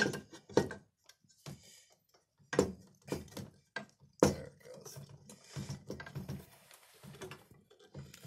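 Irregular metal clicks and knocks as the hinge piece of a school-bus extended stop arm is worked into its support bracket, a snug fit.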